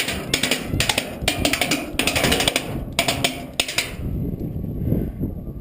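Airsoft gun firing in rapid bursts of clicking shots, about six short bursts in a row, stopping about four seconds in. Wind rumbles on the microphone after that.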